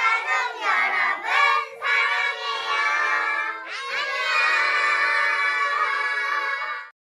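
A group of young children's voices calling out together in a drawn-out, sing-song unison, with long held notes in the second half. The voices cut off abruptly just before the end.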